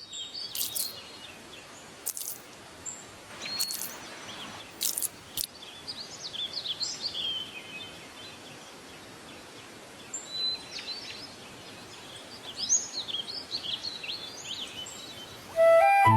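Small birds chirping and calling repeatedly in short high-pitched phrases over a steady outdoor hiss. Flute music comes in suddenly near the end.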